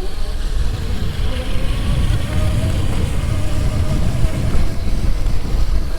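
Modded 48-volt Razor electric dirt bike's motor whining thinly and steadily while riding, under heavy wind buffeting on the microphone.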